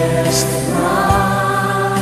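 Background music with singing voices over held chords.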